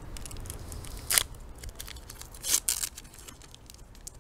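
Foil wrapper of a Pokémon card booster pack being torn open by hand: steady crinkling with two louder rips, about a second in and about two and a half seconds in.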